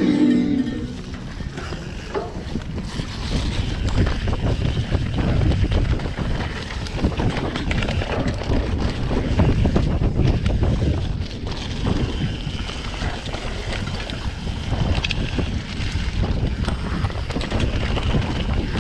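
Enduro dirt bike engine running while riding, its level swelling and easing, with heavy wind buffeting the microphone.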